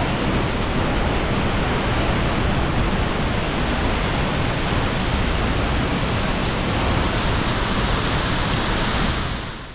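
Steady, loud rush of falling water from a waterfall, fading out at the very end.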